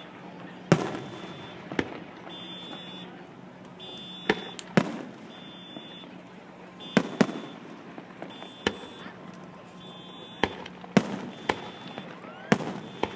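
Aerial fireworks bursting: about a dozen sharp bangs at irregular intervals, some in quick pairs, each followed by a short rumbling tail. A faint high tone pulses on and off underneath.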